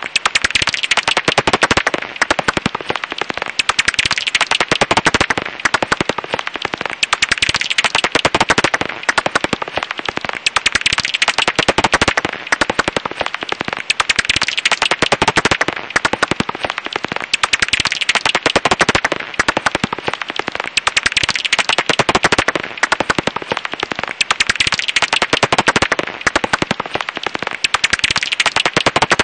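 Japanese house bat (Pipistrellus abramus) calls: a dense, rapid crackle of clicks that swells and dips every few seconds.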